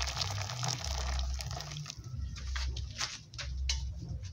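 Boiling water poured from an aluminium pot into a plastic bowl of garri and palm oil: a steady splashing pour that stops about two seconds in. A few scattered sharp clicks follow.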